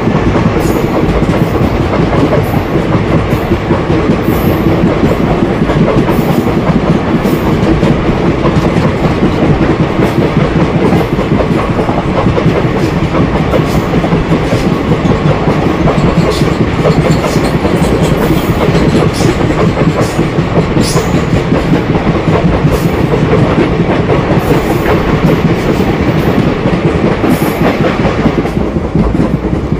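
ICF passenger coach of an express train running at speed: a loud, steady rumble of wheels on rail with sharp clicks and clatter from the wheels and coach.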